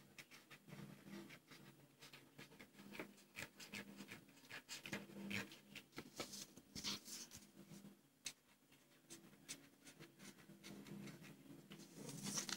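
Felt-tip marker scratching on paper in short, quick strokes as it traces a border, faint, over a steady low hum.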